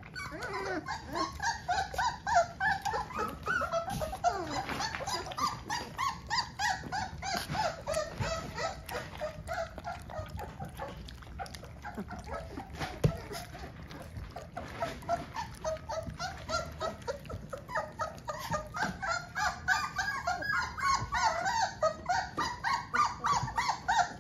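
A litter of young Rhodesian Ridgeback puppies whimpering and whining together, many high wavering cries overlapping, with rapid lapping ticks from puppies drinking at a bowl of milk. The cries thin out in the middle and build again near the end.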